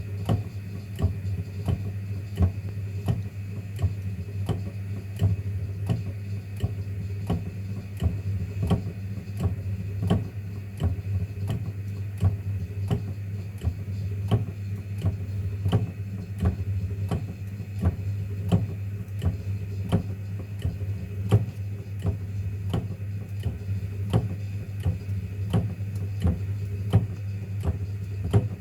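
Running LCD separator machine: a steady low hum from its vacuum pump, with regular ticking about two to three times a second.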